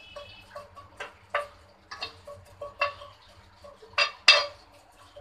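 Irregular sharp clicks and taps at a nonstick frying pan as mustard seeds, curry leaves and green chillies are put into its oil for tempering, the two loudest about four seconds in.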